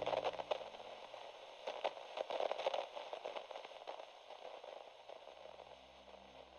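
Crackling radio static, a hiss full of small pops, fading gradually. Faint low held tones come in about five seconds in.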